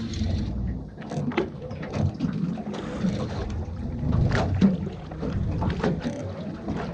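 Small boat at sea: wind on the microphone and water against the hull, with scattered short knocks and clicks.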